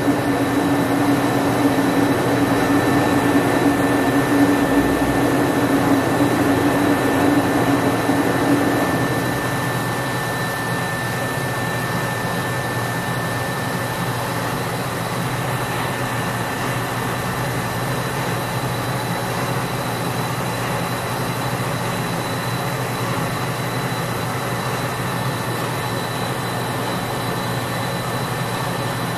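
Hand-held gas torch flame burning with a steady rushing noise while it heats a brass radiator tank to flow solder under a bracket. About nine seconds in the noise drops a little and a low hum in it stops.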